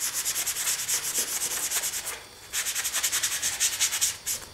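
Cloth rubbing fast back and forth over a painted plastic model roof panel, wiping off excess weathering powder: a quick, even series of hissing strokes with a short pause about halfway.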